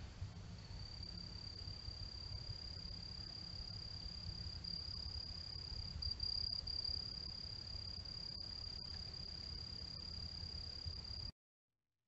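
A night insect trilling in one continuous, steady high note that begins about a second in, over a low steady rumble. It cuts off abruptly near the end.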